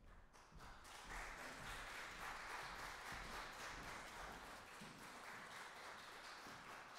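Audience applauding, faint, building up within the first second and easing slightly near the end.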